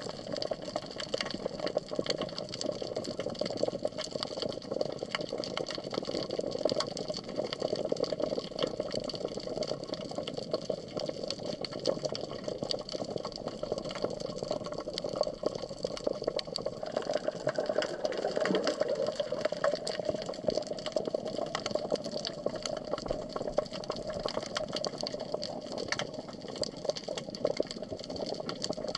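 Underwater ambience picked up by a submerged camera while snorkeling: a steady rushing hum of the sea with many small crackling clicks scattered throughout.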